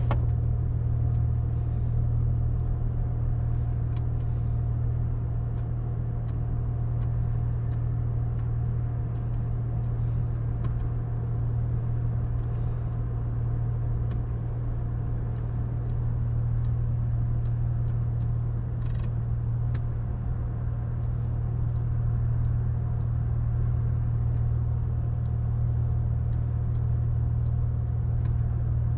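Steady low drone of road and engine noise inside the cabin of a Brabus-tuned 2021 Mercedes-Benz CLS cruising at an even speed, with no revving or change in pitch.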